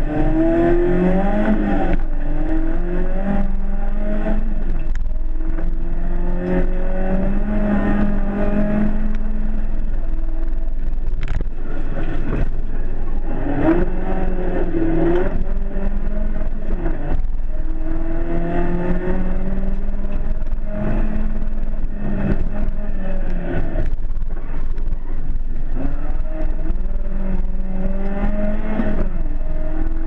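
BMW 318iS rally car's four-cylinder engine revving hard under full acceleration, heard from inside the cabin. Its pitch climbs repeatedly through the gears, with a short dip at each gear change.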